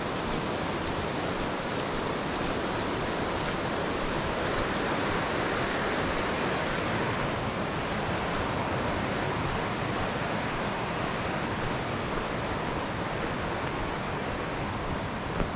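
Rushing mountain stream, a steady full roar of water running over rocks.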